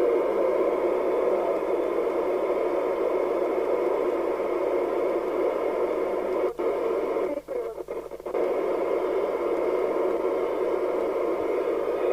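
Midland 4001 FM CB radio's receiver hiss from its speaker, squelch open on a quiet channel, with the noise dropping out briefly several times about two-thirds of the way through.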